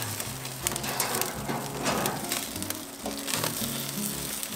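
Hardwood fire crackling under a braai grid, with many sharp pops and clicks over the sizzle of grilling snoek. Background music plays underneath.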